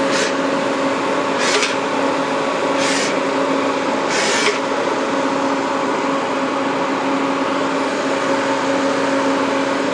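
Citizen M20-III CNC Swiss-type lathe running through a C-axis test with a steady hum, broken by four short hissing bursts about a second and a half apart in the first half.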